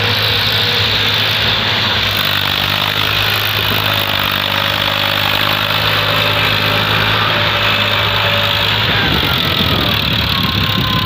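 Eicher 333 tractor's three-cylinder diesel engine running steadily and hard under a heavy load, pulling a loaded soil trolley through soft dirt.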